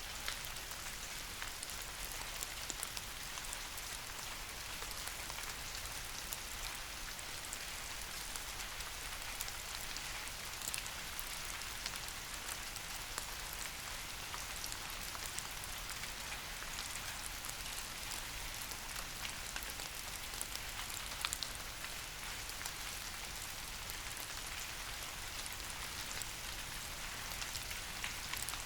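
Steady rain falling on tree leaves, a continuous hiss with scattered sharper drop ticks.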